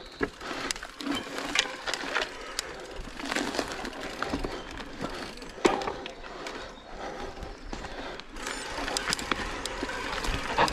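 Mountain bike rolling over rough, slippery trail ground: tyre noise with irregular clicks, knocks and rattles from the bike.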